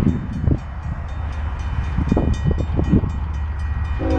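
Approaching Union Pacific freight train led by a GE C45ACCTE (ES44AC) diesel locomotive: a steady low rumble broken by irregular low thumps. At the very end the locomotive's air horn starts to blow, a chord of several steady notes.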